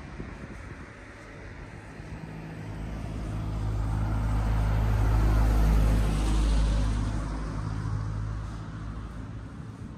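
A car drives past, its engine and tyre noise building over a few seconds, loudest a little past the middle, then fading away.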